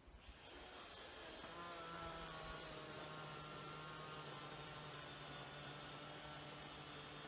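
Makita cordless chainsaw's electric motor spinning up just after the start, its whine rising in pitch and then running steadily.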